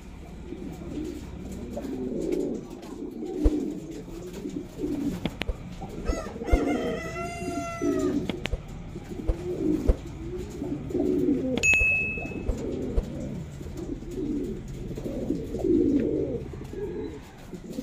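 Mukhi fancy pigeons cooing over and over in low, rolling coos. A few sharp taps, and a short higher call about seven seconds in, are heard among the coos.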